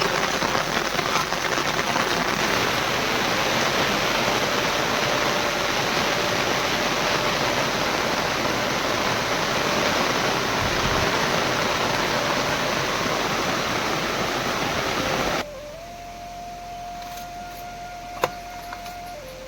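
Heavy rain pouring down, a loud steady hiss that cuts off abruptly about fifteen seconds in.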